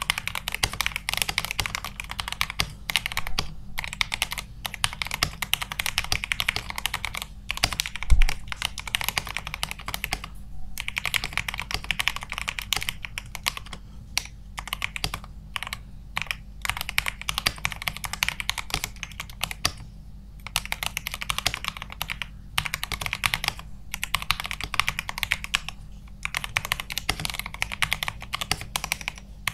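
Typing test on a modded Digital Alliance Meca Air 65% mechanical keyboard in an acrylic case with PBT DSA-profile keycaps, built for a clacky sound. Fast runs of sharp keystrokes come with short pauses between them, and there is one heavier low thump about eight seconds in.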